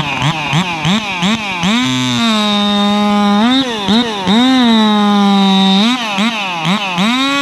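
Racing chainsaw being warmed up: its two-stroke engine is blipped over and over, the pitch jumping up and dropping back, and held at a steady high-pitched idle for a second or so between runs of blips.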